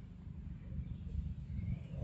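Low, fluttering rumble of wind buffeting the microphone, with faint bird calls in the background.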